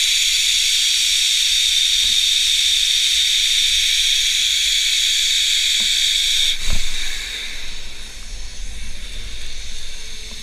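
Zipline trolley pulleys rolling fast along the steel cable: a steady, high-pitched whir over low wind rush. About six and a half seconds in, the whir cuts off with a thump as the trolley slows toward the landing platform, leaving a quieter, uneven wind rush.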